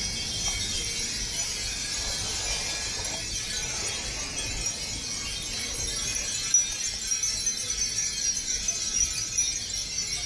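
A large mass of Japanese furin wind bells tinkling together in a continuous, dense, high-pitched jingle. The jingling grows busier, with sharper individual clinks, from about six seconds in.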